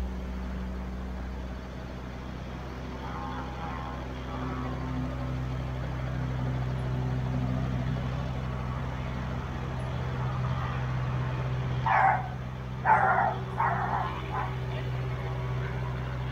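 Robinson R22 Beta helicopter on the ground giving a steady hum, its deepest tone dropping away about a second and a half in. A dog barks several times near the end.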